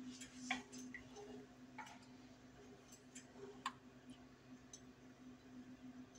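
Faint scattered clicks and soft scrapes of a spatula stirring pasta through a cheese sauce in a skillet, the sharpest tap about three and a half seconds in, over a steady low hum.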